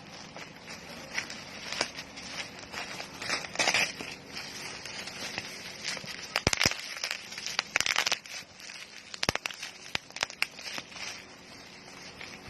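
Plastic parcel packaging being unwrapped by hand, crinkling and crackling in irregular bursts with several sharp clicks.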